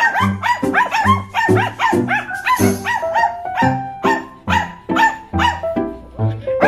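A pack of Shih Tzus barking and yipping in quick, overlapping succession, over background music with a steady beat.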